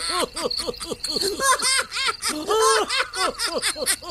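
High-pitched cartoon-style giggling: a quick unbroken run of short 'hee-hee' laughs, several a second.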